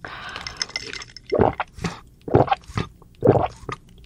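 Sipping a drink through a straw: a hissing suction for about the first second, then four loud gulping swallows.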